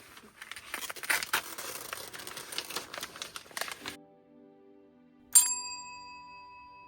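A crinkling, crackling noise full of quick clicks runs for about four seconds and then cuts off suddenly. Soft, held music takes over, and about five and a half seconds in a single bright chime ding rings out and slowly fades; the ding is the loudest sound.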